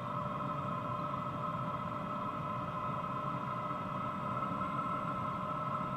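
BougeRV 5 kW diesel heater running steadily on its highest setting: a constant whine from the blower with the combustion exhaust rushing underneath, no muffler fitted on the exhaust and no fuel pump ticking.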